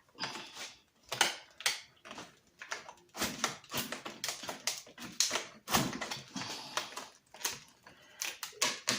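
Packaging and tool parts being handled: an irregular run of rustles, clicks and light knocks.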